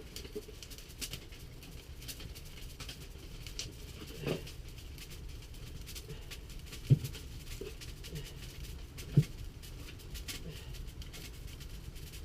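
Small kindling fire of birch bark and twigs catching, with faint scattered crackles and snaps. There is a soft thump about four seconds in and two sharp knocks about seven and nine seconds in.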